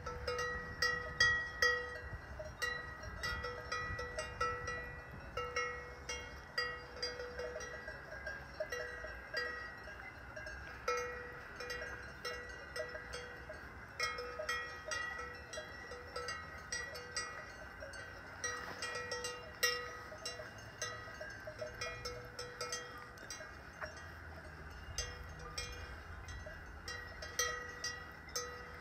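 Cowbells on grazing cattle clanking irregularly, a few ringing strokes a second, as the animals move their heads.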